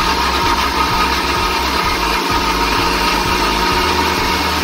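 Electric mixer grinder running steadily, grinding tomatoes, ginger and coriander into a paste in its jar.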